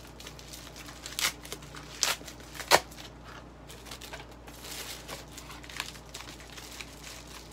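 Paper and plastic packaging being handled and crinkled as a mail-order package is unpacked: a few sharp crackles, the loudest near three seconds in, then a softer rustle.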